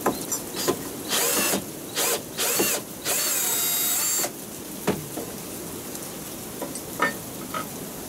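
Cordless drill-driver backing out the screws that hold a bottle opener to a wooden cooler rack, its motor whining in four short bursts, the longest lasting about a second. It is followed by a few light clicks.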